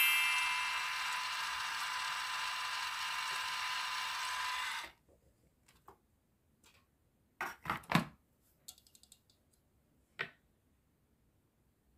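Small battery-powered toy stand mixer whirring steadily, its beaters spinning in a plastic cup of liquid, cutting off abruptly about five seconds in. A few light plastic clicks and knocks follow as the mixer head is tilted up and the cup is handled.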